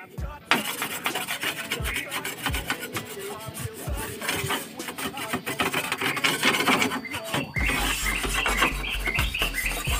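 A sickle blade scraping stuck-on pigeon droppings off a bamboo slat floor in rapid rasping strokes, with occasional knocks of the blade on the slats. Background music with a bass beat comes in near the end.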